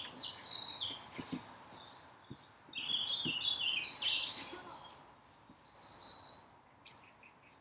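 A songbird chirping and twittering in short high phrases: one at the start, a longer one around the middle, and a thin whistle later on.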